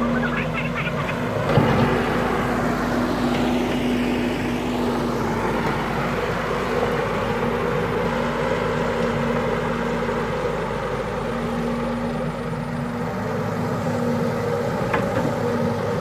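Caterpillar E120B hydraulic excavator's diesel engine running steadily under digging load as the boom scoops soil and swings it to a dump truck, with one sharp clank about a second and a half in.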